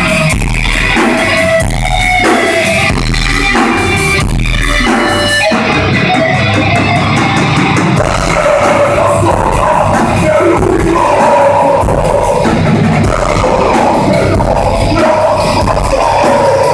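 Heavy metal band playing: distorted electric guitars over a drum kit keeping a fast, even beat, with held melodic notes coming in about halfway through.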